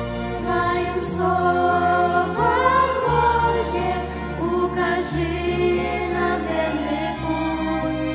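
A group of young girls singing a worship song together into microphones, over an instrumental accompaniment with a bass line that moves in held notes.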